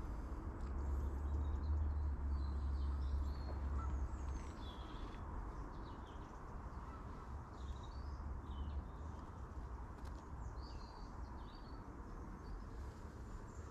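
Birds chirping and calling in the background over a steady outdoor hiss, with a low rumble during the first few seconds.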